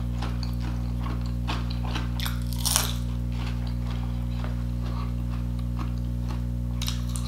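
Crisp crunching bites and chewing of a fried onion ring, close to the microphone, with the loudest crunch about three seconds in. A steady low hum runs underneath.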